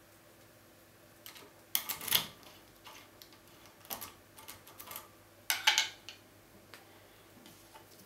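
Metal key sliding into and out of a Bricard Bloctout wafer cylinder, whose 14 springless wafers click and scrape against it. Several short clusters of sharp metallic clicks, the loudest about two seconds in and again near six seconds.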